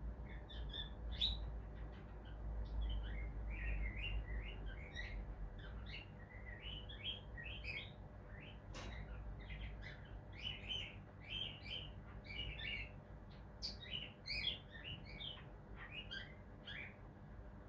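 Cockatiel chirping softly: a string of short, quick chirps and twitters, coming several a second in places, with a single sharp click about nine seconds in.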